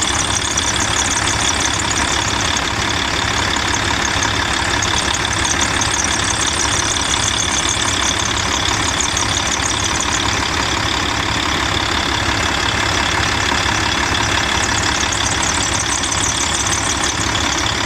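Volvo D12 inline-six diesel idling steadily with a continuous high-pitched whistle from the drive belt, which the owner puts down to the belt rubbing on a roller. Belt anti-squeak spray has not stopped it.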